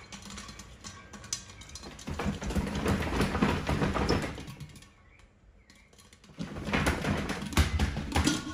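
Popcorn popping fast in an Instant Pot's steel insert under an upturned glass bowl, with the pot being shaken. The pops come in two dense spells, one about two seconds in and one near the end, with a lull of about a second between them.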